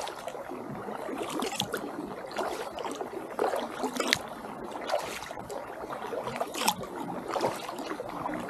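Kayak paddle strokes: the blades dip and splash lightly, with water dripping off them in small, irregular drips and trickles throughout.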